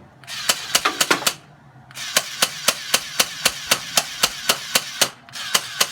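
Electric gel blaster firing on full auto: rapid sharp shots at about four to five a second over a whirring hiss, in a burst of about a second, then a longer burst of about three seconds, then another starting near the end.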